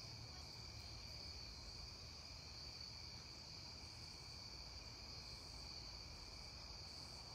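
Faint, steady chorus of crickets singing at dusk, a continuous high-pitched trill at two pitches.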